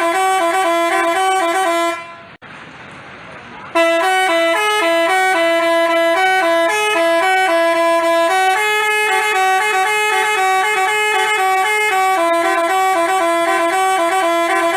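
Basuri telolet horn playing a quick multi-note tune in short stepped tones. It breaks off about two seconds in, leaving a low hiss, and starts again nearly two seconds later.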